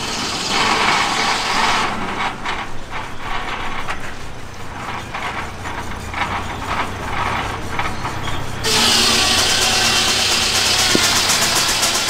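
Flat-belt-driven circular sawmill: the driving engine hums steadily and the blade spins free with a light rapid ticking. About nine seconds in, the blade bites into a log and cuts with a sudden loud, high-pitched noise.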